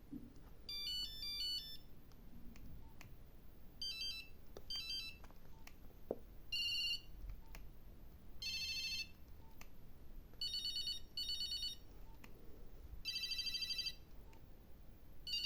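Nokia 2110 mobile phone playing its monophonic beeping ringtones one after another: about eight short snatches, each under a second, with a pause between them. The first is a little stepping melody, the later ones trilling ring patterns. A few faint clicks sound in the gaps.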